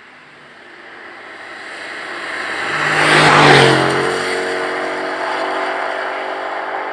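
Aston Martin Vantage AMR's twin-turbo V8 driving past with tyres hissing on a wet road. The sound builds as the car approaches and peaks as it passes, about three and a half seconds in. The engine note then drops slightly in pitch and fades as the car pulls away.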